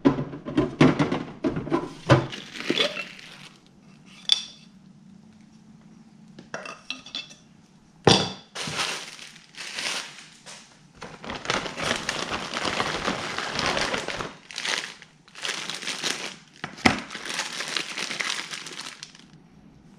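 Hard plastic and metal fittings knocking and clinking on a countertop, then a long stretch of plastic bag crinkling and rustling as bagged parts and tubing are unpacked.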